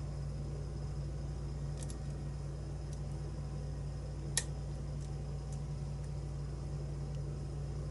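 Lock pick and tension wrench working the pins of a challenge lock: a few faint clicks, the sharpest about four and a half seconds in, over a steady low hum.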